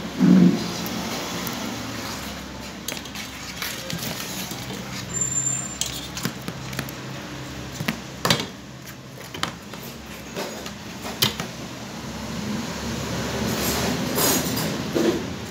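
Small metallic clicks, clinks and rustling from a car window regulator and its steel cable being handled and fitted by hand. There is a louder knock about half a second in and a few sharp clicks later on.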